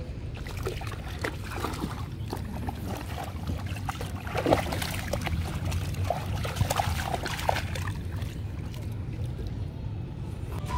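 Rottweiler puppies wading in shallow lake water and lapping at it, with small splashes and water sloshing and trickling around them, over a steady low rumble.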